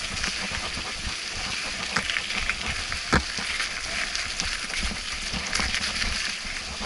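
Mountain bike rolling fast down a wet, muddy dirt trail: steady tyre and rattle noise full of small clicks, with a sharper knock about three seconds in.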